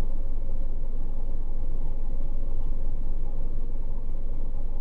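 Car engine idling, heard from inside the stationary car's cabin as a steady low rumble.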